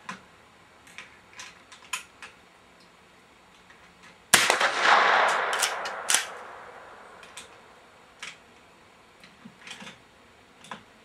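A single .22 rifle shot from a Remington 572 pump-action, a sharp crack about four seconds in that rings out for about two seconds afterward. Scattered light clicks and taps come before and after it.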